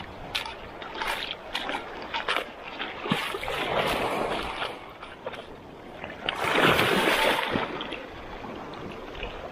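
Footsteps splashing through ankle-deep seawater over stones, a quick run of small splashes, then a sea wave rushing and washing over the rocks about two-thirds of the way through, the loudest sound, before settling to a steady wash.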